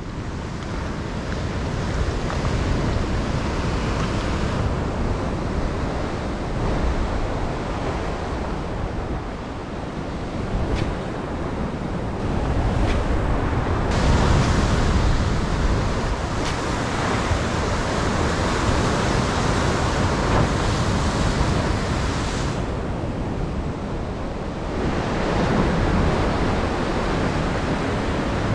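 Ocean surf washing in along the shoreline, a steady rush that swells and eases as waves come in, with wind buffeting the microphone.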